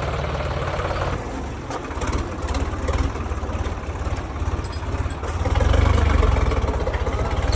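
Heavy diesel engine running with a steady low pulse, growing louder for about a second a little before the end.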